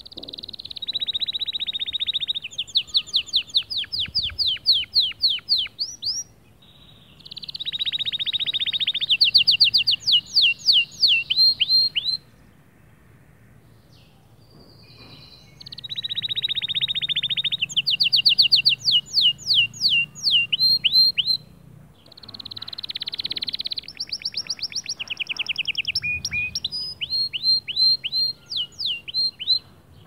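White male canary singing: four song phrases with short pauses between them, each opening with a fast buzzing trill and running on into a quick series of rising whistled notes.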